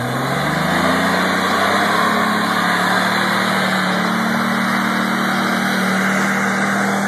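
Ford Explorer 4x4's engine revving up in the first second, then held at steady high revs as the truck drives through mud.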